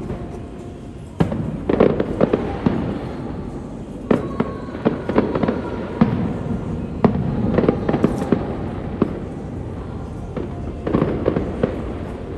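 Aerial fireworks going off in quick, irregular clusters of sharp bangs with crackling between them, picked up by a phone's microphone.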